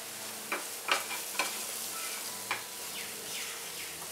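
Spine gourd pieces sizzling in a nonstick pan while a spatula stirs them. There are four sharp scrapes of the spatula on the pan in the first two and a half seconds.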